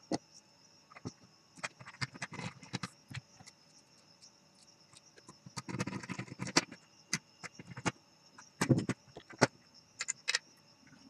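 Scattered clicks, taps and clatter of a handheld multimeter's plastic case parts, circuit board and small screwdrivers being handled on a workbench as the meter is reassembled, busiest around the middle and with a few sharper knocks near the end. A faint steady high-pitched tone sits underneath throughout.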